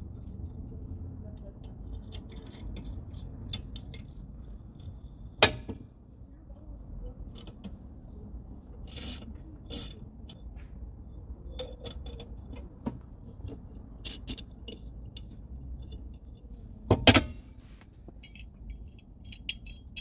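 Light metallic clinks, rattles and scrapes of tools and bolts while a car's rear brake drum is being taken off, over a steady low rumble. Two sharp metal knocks stand out, one about a quarter of the way in and a louder double knock near the end.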